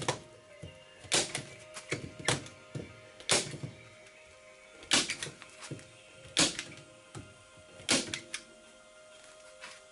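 Sharp knocks or clacks at uneven intervals, roughly one a second with fainter ones between, over background music with sustained tones.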